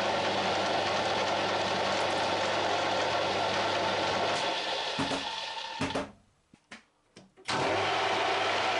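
A metalworking machine tool running steadily with a low hum. About six seconds in it cuts out to near silence, with a few clicks, and starts running again a second and a half later.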